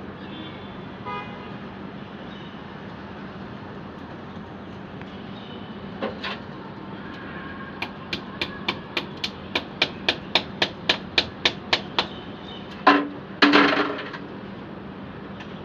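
A run of about sixteen sharp knocks, about four a second, getting louder, then one loud bang and a short clatter near the end, over a steady background hum.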